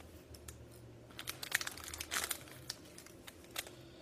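A small craft-supply packet crinkling as it is handled, in irregular bursts that are loudest a little past a second in, with a last crackle near the end.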